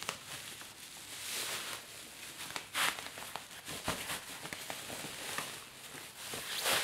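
Plastic bag rustling in several short bursts, with light clicks and knocks, as a wireless speaker is pulled out of its protective bag.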